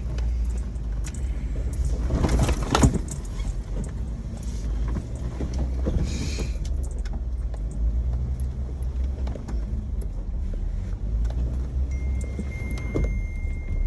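Jeep crawling over a rough off-road trail: a steady low engine and drivetrain rumble with many knocks and rattles, and a louder clatter about two to three seconds in.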